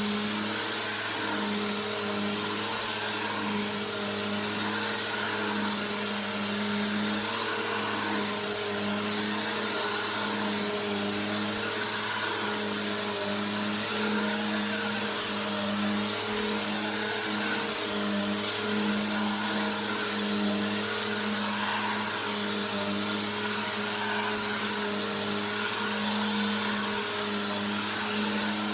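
Bissell PowerForce Helix (model 2191) vacuum cleaner running continuously, a steady motor hum over the rush of its suction.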